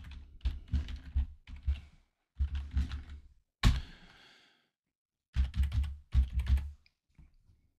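Computer keyboard being typed on in quick runs of keystrokes, with one louder key click and a gap of about a second past the middle, as a password and a 6-digit one-time code are entered.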